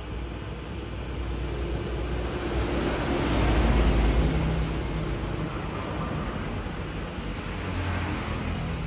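Vehicle engine rumble and road noise, swelling to its loudest about four seconds in and then easing off, like a vehicle passing close by.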